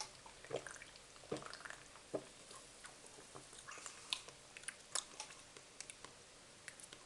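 A person sipping a sparkling guava soft drink and swallowing, with about three gulps in the first two seconds or so, followed by faint mouth clicks and lip smacks while tasting.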